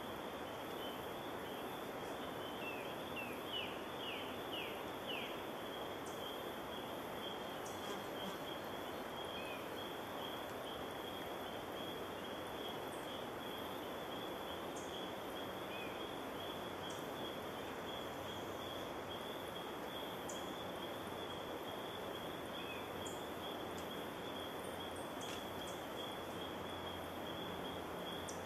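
Forest ambience: a steady high insect buzz over a faint hiss, with a bird giving a quick run of short falling notes about three seconds in and single notes now and then afterwards. The howler monkeys are not calling.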